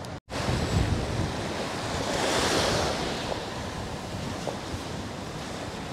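Small waves washing up a sand beach, one wave surging in about two seconds in, with gusty wind rumbling on the microphone.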